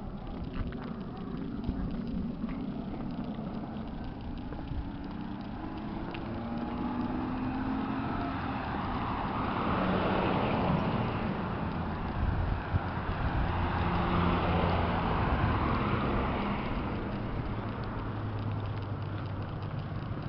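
Cars passing on the street: tyre and engine noise swells and fades twice, about ten and fifteen seconds in, over a low steady rumble.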